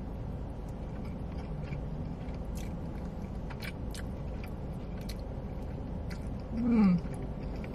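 Close-up eating sounds from chewing barbecue ribs: small wet mouth clicks and smacks scattered through, over a steady low rumble. Near the end, a short falling "mmm" of enjoyment is the loudest sound.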